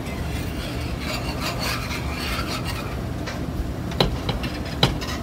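Metal whisk stirring thick gravy in a cast-iron skillet, a rough rasping scrape against the pan, with two sharp clicks near the end.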